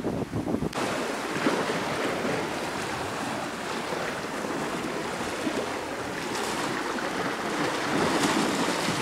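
Small waves washing on a rocky shore: a steady rushing hiss that swells slightly near the end. It comes in abruptly after a few faint clicks in the first second.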